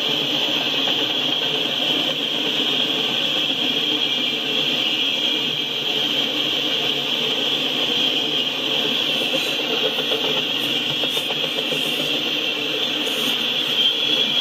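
Freight train of autorack cars rolling past close by: a steady rumble of steel wheels on rail with a constant high-pitched hiss over it.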